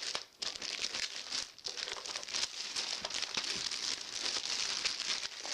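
Packaging wrap crinkling and rustling as it is handled and pulled off a keyboard, in an irregular run of crackles.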